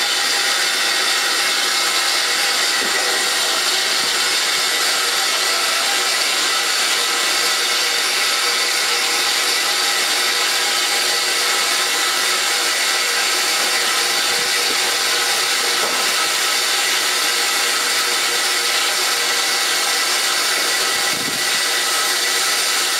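Steady, loud hissing rush of a steam-hauled train in motion, heard at an open carriage window, with no distinct rhythm. A brief low thud near the end.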